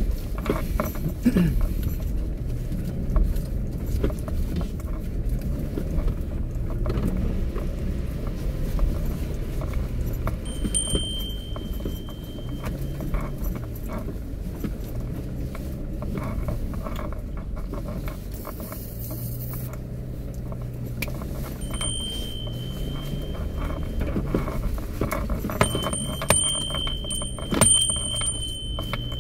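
Kia Mohave SUV driving slowly over a bumpy forest dirt track, heard from inside the cabin: a low engine and tyre rumble with frequent knocks and rattles. A steady high-pitched electronic tone sounds for about two seconds about ten seconds in, again briefly just past twenty seconds, and runs through the last few seconds.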